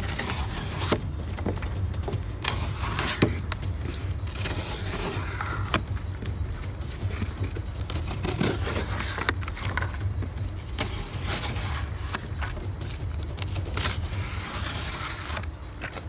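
Cold Steel 4Max folding knife's plain-edge blade slicing through corrugated cardboard: a series of rasping, scraping cuts at irregular intervals.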